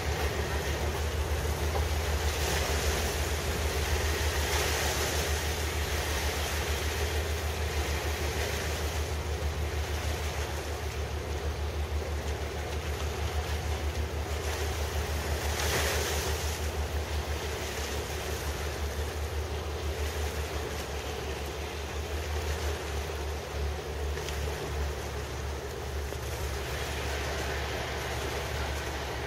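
Wind buffeting the microphone, with a fluttering low rumble and gusts swelling a few seconds in and again about halfway through, over the wash of river water.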